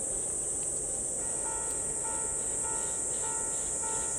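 Summer insects, likely cicadas, droning steadily and shrilly; about a second in, a railway level-crossing alarm starts ringing, a repeating electronic two-pitch tone at a little under two rings a second, sounding for the approaching steam train.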